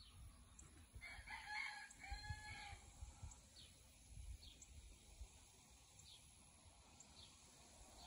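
A rooster crowing once, about a second in, the crow lasting under two seconds in two parts. Faint short high chirps recur throughout.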